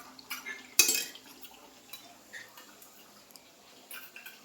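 A few sharp clinks of dishes and cutlery during eating, the loudest just under a second in, with lighter taps scattered after.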